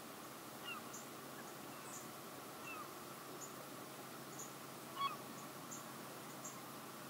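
Faint lakeside birdsong: short high chirps repeating about once a second, a few brief gliding calls, and one louder call about five seconds in, over a steady soft hiss.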